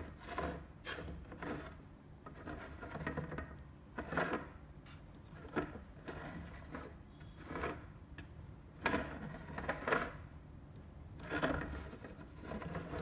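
A figure's display base being turned by hand on a wooden tabletop: short, irregular scrapes and knocks, a second or two apart.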